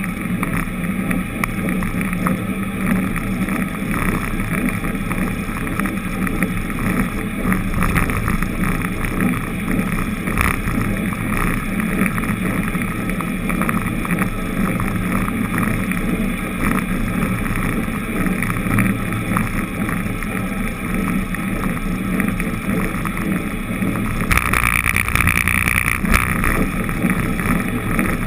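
Steady road and wind noise from a vehicle driving along a city street, with wind buffeting the microphone. It grows louder and hissier about 24 seconds in.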